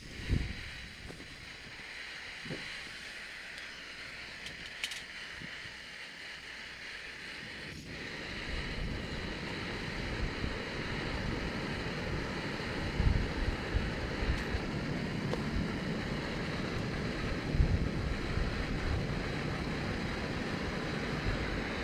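Wind buffeting the microphone, a low uneven rumble that builds from about a third of the way in and gusts harder twice, over a steady high hiss, with a knock right at the start.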